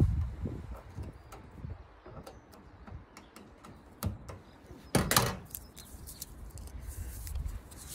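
Scattered light clicks and knocks of hand work, with one louder scraping noise about five seconds in.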